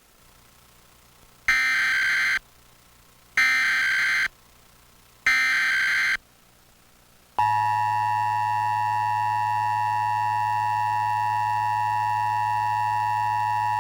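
Emergency Alert System test broadcast: three short bursts of warbling digital data tones (the SAME header), about a second apart, then from about seven seconds in the steady two-tone EAS attention signal (853 and 960 Hz).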